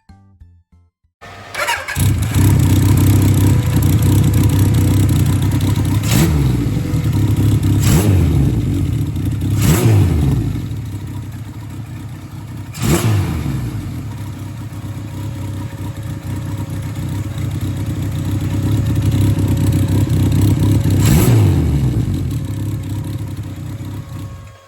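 Kawasaki KZ1000 Mk II's air-cooled inline-four starting about a second in and running loud through a short-pipe exhaust. It is blipped five times, each rev falling back to idle, and stops just before the end.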